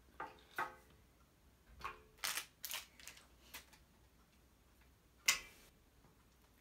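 Jiggly slime squished and pressed by hand against a glass tabletop: a string of short, faint squelches and pops, some with a brief squeaky pitch, the loudest about five seconds in.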